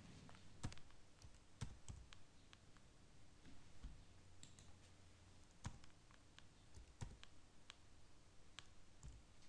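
Faint, scattered clicks of a computer keyboard and mouse, keys pressed one at a time with pauses of a second or so as a number is typed into a spreadsheet-style table.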